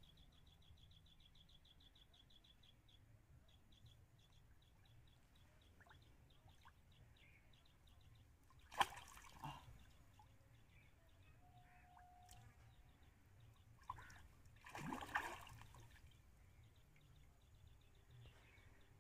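Quiet pond-side ambience with a faint fast high ticking call that thins out after the first few seconds, and two brief water splashes at the pond's edge, about nine and fifteen seconds in, the second one longer.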